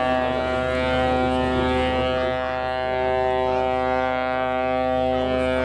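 Ship's horn giving one long, steady blast at a single unchanging pitch.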